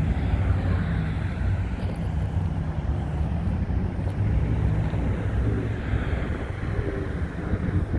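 Small bulldozer's diesel engine idling with a low, steady running sound.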